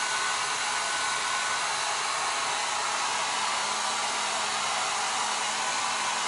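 Handheld hair dryer running steadily, blowing on a wet cat's fur.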